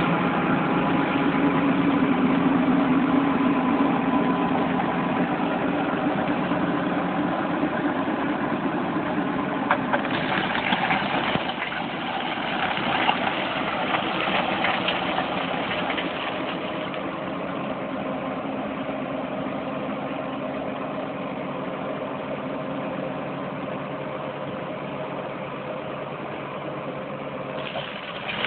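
Bobcat skid steer's diesel engine running steadily, a little louder for the first ten seconds, with scattered crackles about ten to sixteen seconds in.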